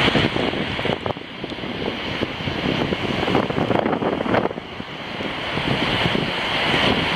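Strong wind buffeting the microphone in gusts over the rush of surf.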